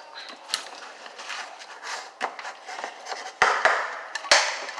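Toy kitchen utensils and pots clattering and knocking during pretend cooking: a string of small clicks, then three louder knocks near the end.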